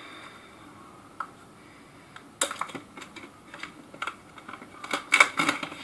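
Clear plastic protective film being peeled off a smartphone and handled, crinkling and crackling in quick, uneven clicks. It starts about two and a half seconds in and is loudest near the end.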